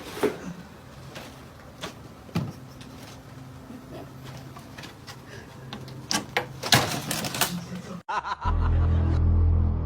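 Scattered knocks and clatter over a faint low hum. The sound cuts off suddenly about eight seconds in, and loud, bass-heavy music follows.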